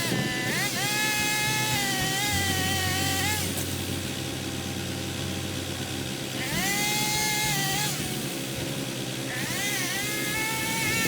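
Small saw engine revving up and holding at high speed three times, with short easings in between, as in cutting branches. A steady low engine hum runs underneath for a few seconds in the first half.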